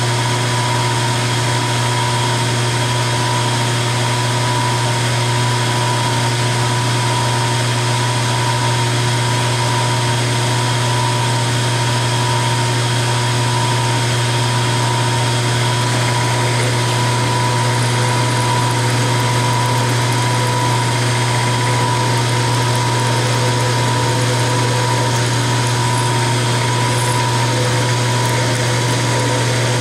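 Milling machine running at a steady speed, with a constant low hum and a steady whine, as a number 21 drill bores tap-drill holes for 10-32 screws in an aluminum block.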